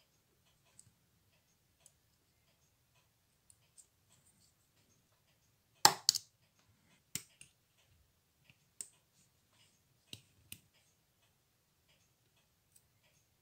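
Small, sharp metal clicks and taps of steel tweezers and a watchmaker's screwdriver against a 1930s Junghans watch movement and its metal holder, scattered and irregular. The loudest pair of clicks comes about six seconds in.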